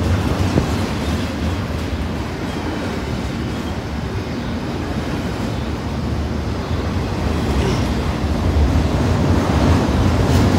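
Double-stack container cars of a freight train rolling past on steel rails: a steady rumble of wheels on track, growing a little louder near the end.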